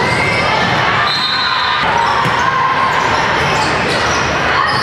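Indoor volleyball rally in a large, echoing gym: the ball struck with sharp slaps, sneakers squeaking on the court, and players' voices calling.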